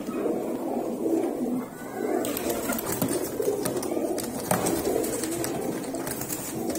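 Many domestic pigeons cooing at once in a small enclosed loft, a dense overlapping chorus of low coos, with a few short flutters of wings.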